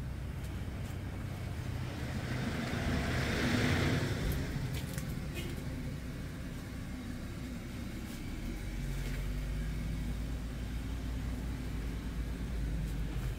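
Old village rice mill's machinery running with a steady low hum. A louder rush of noise swells and fades about three to four seconds in, with a few light clicks.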